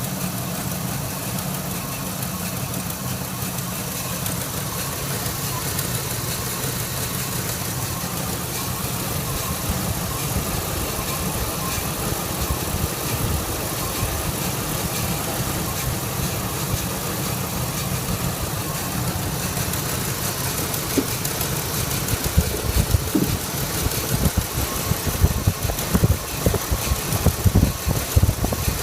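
2001 Ford F-150 engine idling with a misfire that began after an exhaust manifold gasket replacement. About two-thirds of the way through, irregular sharp pops and thumps start breaking through the steady idle and come more often toward the end.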